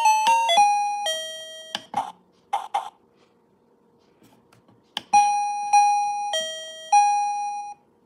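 KERUI plug-in wireless doorbell chime receiver playing its electronic chime tunes. A quick run of bright beeping notes steps down and ends about two seconds in, followed by a few short clicks. After a pause, a slower tune of four long held notes starts about five seconds in, dipping in pitch and coming back up.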